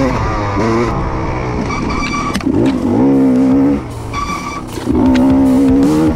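KTM dirt bike engine revving up and down under throttle on a trail ride, its pitch climbing and holding, then dropping off for about a second near four seconds in before coming back on.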